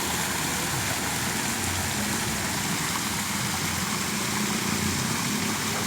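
Steady rushing of fountain water, with a low rumble underneath.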